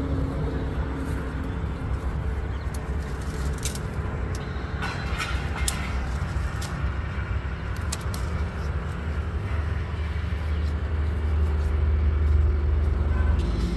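Steady low outdoor rumble that grows a little stronger in the second half, with a handful of short sharp clicks between about four and seven seconds in.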